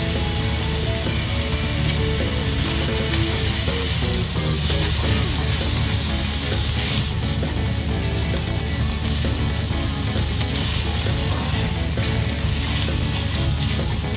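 Thin-sliced beef sizzling steadily as it fries in a nonstick frying pan, turned over with wooden chopsticks partway through.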